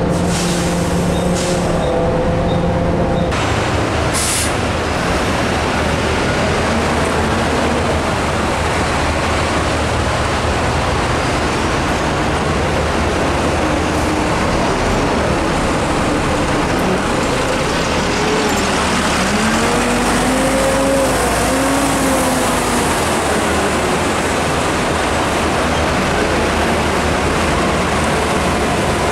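Volvo B9TL double-decker bus's diesel engine running, with a short hiss of air about four seconds in. Around twenty seconds in the engine note rises and falls as the bus moves off.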